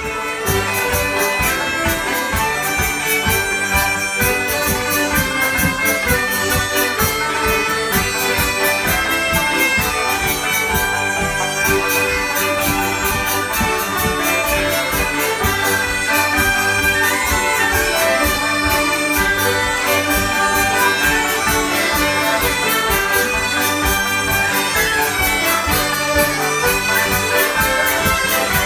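Folk ensemble of diatonic button accordion, hurdy-gurdy, fiddle, acoustic guitar and banjo playing a French traditional tune together, with a steady beat.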